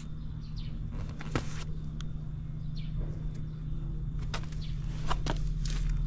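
Suzuki DR350's single-cylinder four-stroke engine (K406) running steadily at idle, a little louder toward the end.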